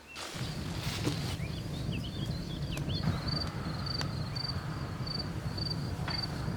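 Rural outdoor ambience: a steady low rumble starts about half a second in, with a few short bird chirps and then a high chirp repeating about twice a second, like an insect or small bird, plus a few faint clicks.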